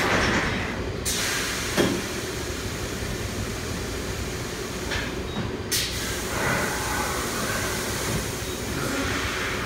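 Thermoforming machine cycling: bursts of air hiss and sharp clunks as its platen and clamp frame move, over a steady machine hum. The loudest clunk comes about two seconds in.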